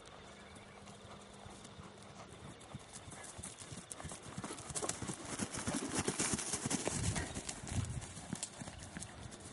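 Thoroughbred mare's hooves striking dry grass at a trot, a quick even run of hoofbeats. They grow louder as she passes close by, about five to eight seconds in, then fade as she moves away.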